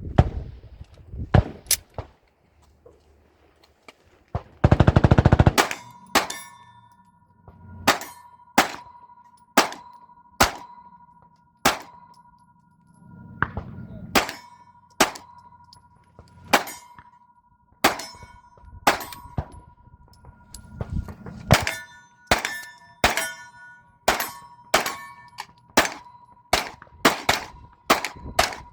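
A long string of gunshots, about one every half second to second, each striking a steel target that rings with a clear metallic ding. The ring hangs on between the hits. About five seconds in comes a loud, rough, clipped burst about a second long.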